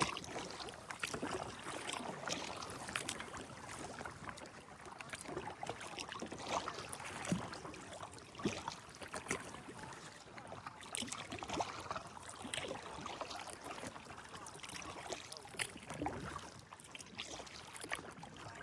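Kayak paddle strokes: soft splashes and trickling water as the blades dip in and lift out, at an irregular pace.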